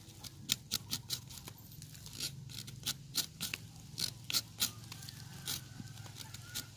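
Knife blade scraping the outer bark off a trôm (Sterculia foetida) tree trunk around a freshly drilled sap-tapping hole: a run of short, irregular scrapes and clicks, several a second. The bark is being cleaned around the hole before the sap is collected.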